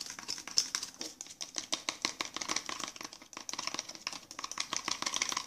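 A spoon stirring water and body wash briskly in a clear plastic cup, with rapid clicking against the cup's sides, whipping the mixture into foam.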